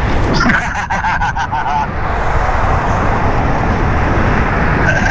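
Wind rushing over the microphone with road noise from passing traffic, heard from a moving e-bike. About half a second in comes a quick run of short pitched pulses, about five a second, lasting about a second and a half.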